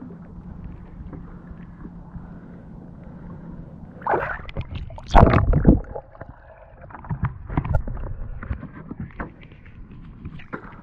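Muffled lake water sloshing and gurgling against a waterproof camera housing at the surface, under a faint steady low hum. Loud splashes come about four to six seconds in, with smaller splashes after.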